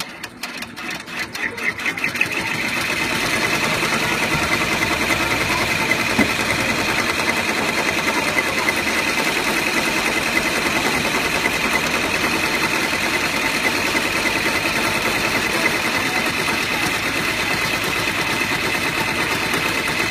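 Multi-needle embroidery machine starting up: its needle strokes quicken over the first two seconds, then it runs steadily at full speed sewing a satin-stitch outline.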